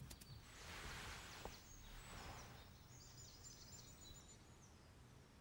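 Near silence: faint forest ambience, with two soft swells of rustling noise in the first few seconds and faint thin high-pitched tones in the middle.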